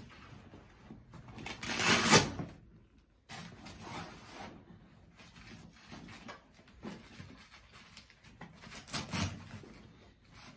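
A nylon tactical backpack being packed and closed with an axe inside: fabric rustling and scraping, with two louder pulls about two seconds in and near the end.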